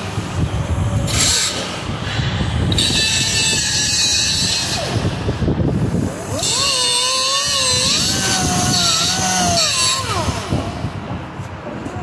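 Small handheld cutoff grinder with an abrasive wheel cutting at the metal hub of an AC condenser fan blade that is seized by rust onto the motor shaft. It runs in several stop-start bursts. In the longest burst the whine wavers in pitch as the wheel bites, and it dies away about ten seconds in.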